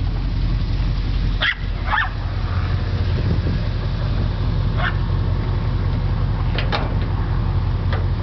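1966 Ford F100's 352 FE V8 idling steadily with a low, even rumble. About six short, sharp sounds cut across it: two close together about one and a half seconds in, and the rest from about five seconds on.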